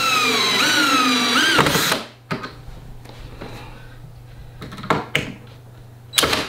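Cordless drill driving a screw into the couch frame, its whine sagging in pitch under load and then rising sharply just before it stops about two seconds in. A few sharp knocks and clicks follow, the loudest near the end.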